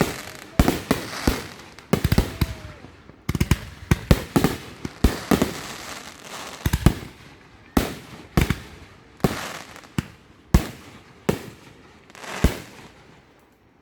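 Fireworks finale: a rapid barrage of aerial shells bursting with sharp booms and bangs, packed close together at first and then spacing out, the last burst about a second before the end.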